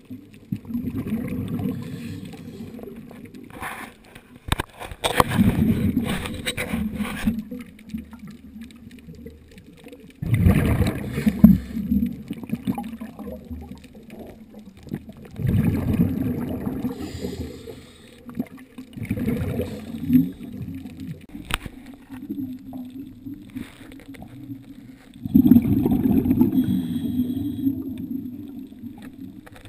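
A scuba diver's exhaled bubbles heard underwater: a gurgling rush of bubbles roughly every five seconds, with a couple of sharp clicks in between.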